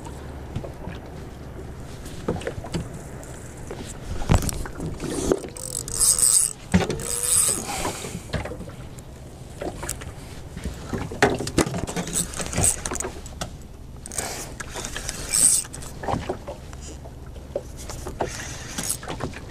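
Fishing rod and reel being handled in a small wooden boat: irregular knocks and clicks against the hull and fittings while the spinning reel is wound, over a faint steady low rumble. A short wavering tone sounds about five to eight seconds in.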